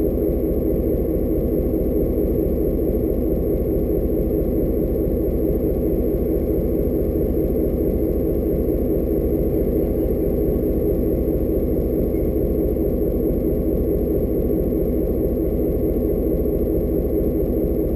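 Diesel-electric locomotive's engine idling steadily with a deep, even rumble.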